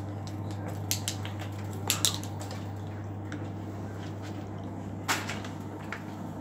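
LG Direct Drive washing machine running at the start of a Cottons 60 wash: a steady low hum, with a few sharp clicks and knocks about one, two, five and six seconds in.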